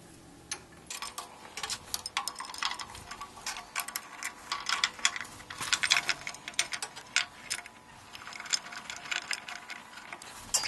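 Rapid, irregular metallic clicking and ticking from a steel hex key turning and seating screws in the Z-axis ballscrew mounting bracket on a metal lathe bed.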